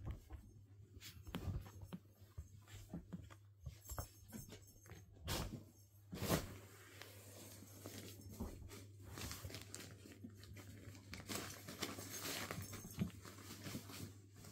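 Irish terrier puppies scrambling over and through a fabric cat tunnel and bedding: irregular rustling and crinkling of the fabric with scrabbling paws and soft knocks, the loudest bump about six seconds in.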